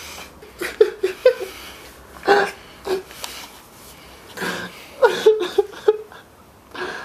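A man sobbing in short, broken bursts, with catching breaths between them.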